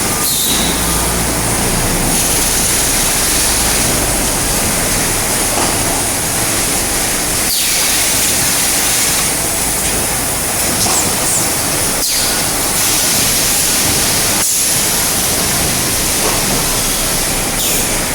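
Carton packing machinery running: a loud, steady, even noise with a few very brief dips.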